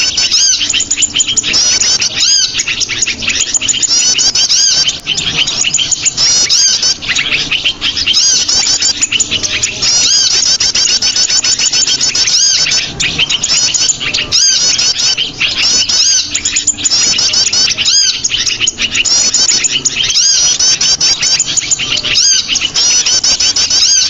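Small-bird lure recording: many small songbirds chirping and twittering over one another in a dense, unbroken stream of quick high chirps. The sound is played to draw small birds in.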